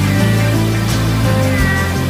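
Electronic background music with sustained bass notes and a steady beat.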